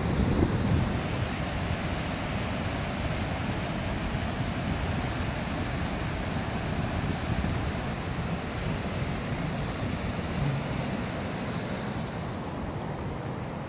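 Ocean surf breaking on a sandy shore, a steady wash of wave noise mixed with wind, easing off slightly near the end.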